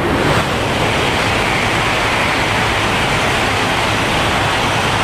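Shinkansen bullet train passing through a station platform at speed: a loud, steady rushing noise that builds in the first moment and then holds.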